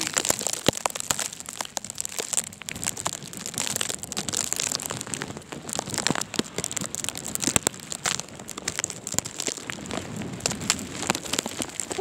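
Blizzard wind rushing over the microphone, with a fast, irregular crackle of sleet pellets striking the phone and the fabric wrapped around it.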